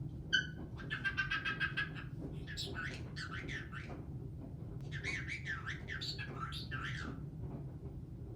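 Pet caique parrot vocalizing: a short whistled note, then a rapid chattering trill of about ten notes a second, then two stretches of warbling, babbling calls with rising and falling pitch.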